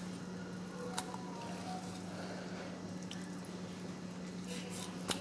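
Knife sliding between the skin and flesh of a raw salmon fillet as the skin is pulled away: soft, wet squishing, with a sharp click about a second in and another near the end.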